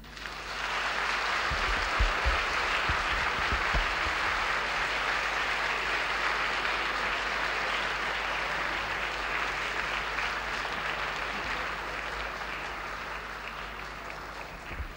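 Audience applauding, starting at once and slowly tapering off near the end.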